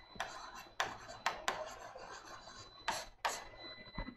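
Marker scratching on a writing board: a series of short rasping strokes, some quick and some drawn out, as figures are written and lines ruled under them.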